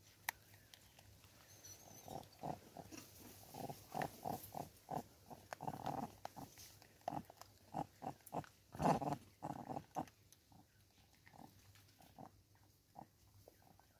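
Vervet monkey close to the microphone making a run of short, low sounds, a few a second, loudest about nine seconds in.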